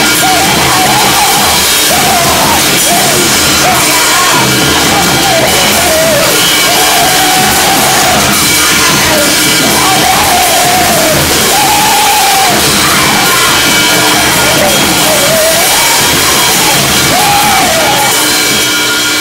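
Harsh noise music: a loud, unbroken wall of distorted noise with a pitched, wavering howl rising and falling over it.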